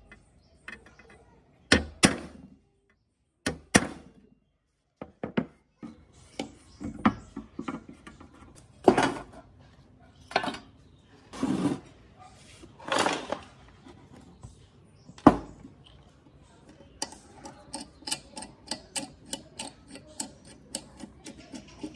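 Sharp metal-on-metal strikes, a second or more apart, from a hammer driving a centre punch into a rusty sheet-steel laminator panel. Near the end comes a run of light, quick metallic clicks and taps, about three or four a second, as a tool works at the rusted gears on the end of the rollers.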